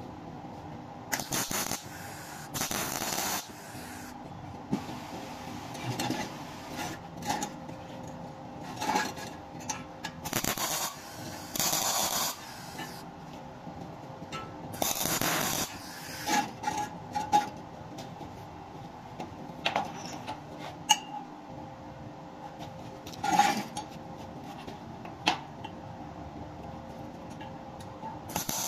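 MIG welder tack-welding small steel parts: repeated short bursts of crackling arc, each lasting up to about a second, with clicks of metal parts being handled between them over a steady hum.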